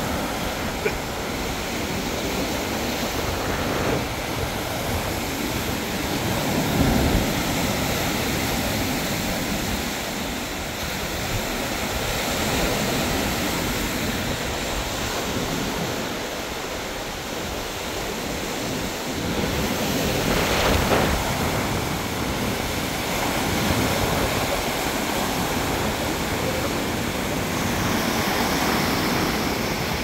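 Waves breaking on the shore, a steady rushing surf that swells and eases, with strong wind buffeting the microphone.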